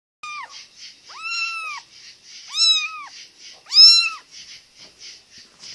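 Kittens meowing: four high-pitched mews, a short falling one and then three longer arched ones, the last two the loudest.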